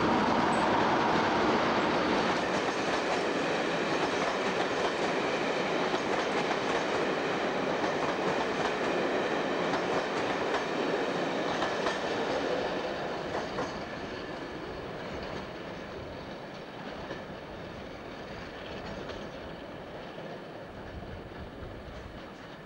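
British Rail locomotive-hauled passenger train passing close by, its coach wheels clattering over the rails. The sound is loud at first, then fades steadily from about halfway through as the train pulls away.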